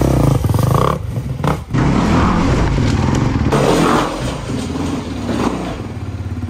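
2022 Honda 250 motocross bike's four-stroke single-cylinder engine running and being revved, the pitch rising and falling with the throttle, with a brief drop in loudness about a second and a half in.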